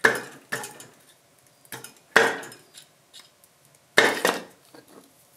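Sharp metal clanks and knocks of hand tools against the tractor's diesel engine as the water pump housing is pried loose. The loudest strikes come right at the start, a little after two seconds and at about four seconds, each ringing briefly, with lighter taps between.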